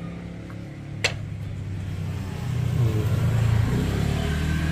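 An engine running steadily, growing louder from about two and a half seconds in, with a single sharp click about a second in.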